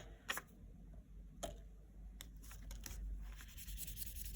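Pen writing on paper: a few light clicks and taps, then a steady faint scratching from about three seconds in.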